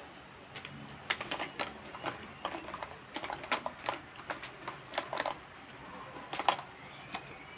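Irregular run of small clicks and taps from handling close to the phone's microphone, ending about six and a half seconds in.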